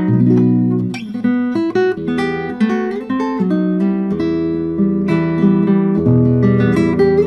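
Background music: an acoustic guitar playing a strummed and plucked tune.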